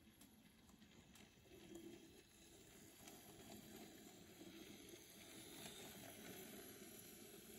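Very faint, steady hum of an N gauge model Class 101 DMU's motor and wheels as it runs slowly along the track, slowly growing a little louder.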